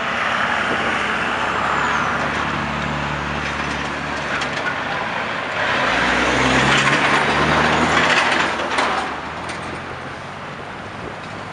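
Diesel vehicles passing at an intersection: a yellow school bus goes by first, then a Kenworth T2000 semi tractor running without a trailer passes close by about six seconds in. The truck is the loudest part, its engine hum rising and then fading after a few seconds, over steady traffic noise.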